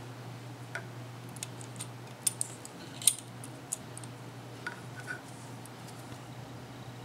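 Light metallic clicks and ticks from a Singer 221 Featherweight sewing machine being handled, irregular and scattered, the loudest about three seconds in, over a steady low hum.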